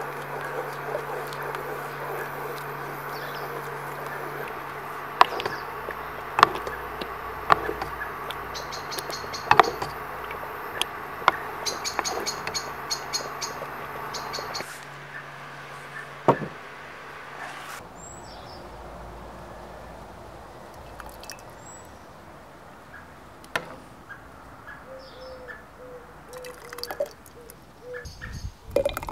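Wooden spoon stirring thick tomato sauce in a metal pot: a steady wet swishing broken by sharp knocks of the spoon against the pot, over a low steady hum. About halfway through the stirring stops and the hum soon after, leaving a few bird chirps, and near the end a ladle clinks against a glass jar.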